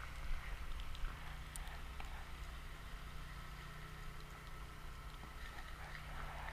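A low, steady motor hum with a few faint clicks over it.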